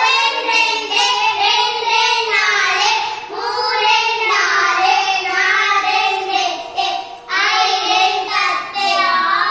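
A child's voice singing in long, high-pitched held notes, with short breaks between phrases.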